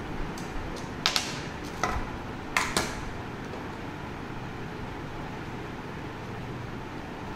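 Sharp clicks from handling a GoPro Hero 9 action camera: about eight of them, several in quick pairs, in the first three seconds. A steady low hum lies underneath.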